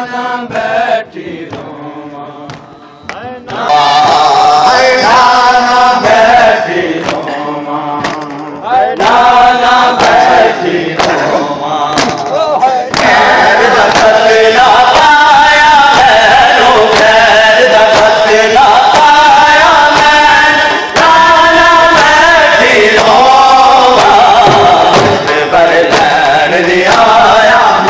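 A noha, a Muharram lament, sung by a male reciter through a loudspeaker system, with mourners' sharp, rhythmic chest-beating (matam) slaps. It grows much louder about four seconds in and again near the middle, where the slaps become steady and dense.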